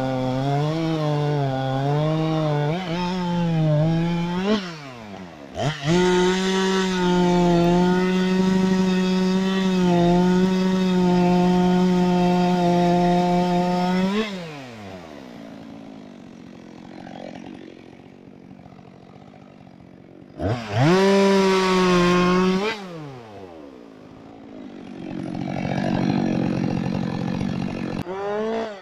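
Two-stroke chainsaw engine revving: held at high throttle for several seconds, then dropping back to idle, with a second short burst of throttle later on.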